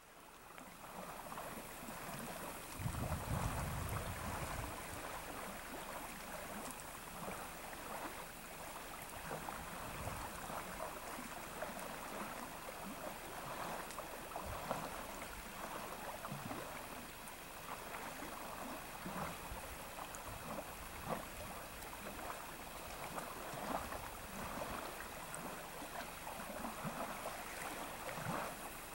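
Fast-flowing river rushing steadily, with a brief low rumble about three seconds in.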